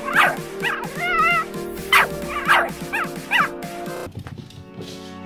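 Staffordshire Bull Terrier puppy yipping and whining, a string of short high-pitched cries with one wavering, warbling whine among them. The cries stop about three and a half seconds in.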